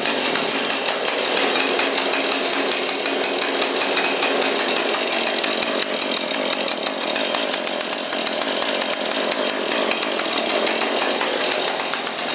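Husqvarna 435 single-cylinder two-stroke chainsaw running at high speed, a loud, steady engine sound held throughout.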